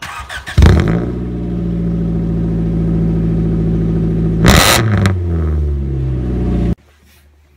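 1989 Integra's 1.6-litre four-cylinder heard at the tailpipe, starting up: a short rough crank, then it catches with a flare of revs about half a second in. It settles into a steady idle, gets one quick throttle blip about four and a half seconds in, and the sound cuts off suddenly near the end.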